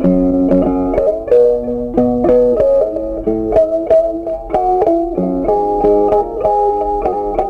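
Background music: a melody of plucked string notes, each struck sharply and then fading.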